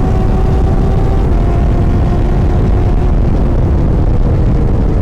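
Kawasaki ZX-10R inline-four sport bike engine and exhaust running loud and steady, its pitch holding nearly level.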